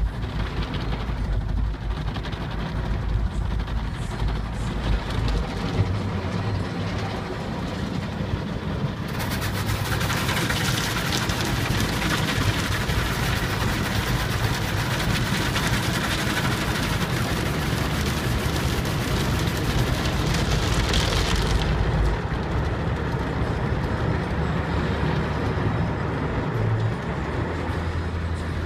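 Automatic car wash heard from inside the car: a steady rush of water spray on the body and windows over a low machinery rumble. A louder, hissing spray comes in about nine seconds in and drops away about twenty-one seconds in.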